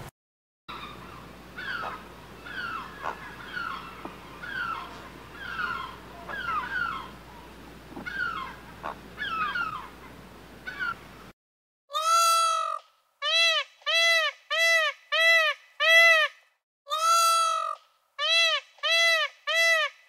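Animal calls: a rapid run of short chirps, each sweeping down in pitch, over background noise. After a brief break about eleven seconds in, a different, louder call repeats about ten times, roughly once a second, each call rising and then falling in pitch.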